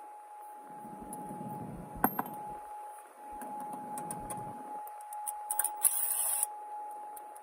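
Cordless Kobalt driver running briefly, about half a second, about six seconds in, turning out a screw that holds the factory radio in the dash. Before it, a knock and handling rustle from working around the dash.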